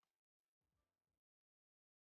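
Near silence: the sound drops out almost completely.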